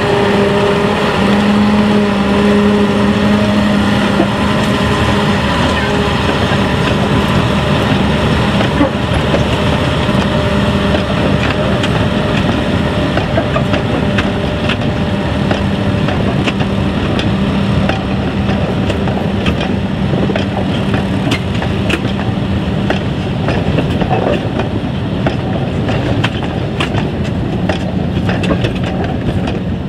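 Small narrow-gauge diesel locomotives running as they pass, their engine drone fading over the first half, while a long train of steel peat wagons rolls by on the light railway track with a growing run of sharp clicks and clatters from the wheels and couplings.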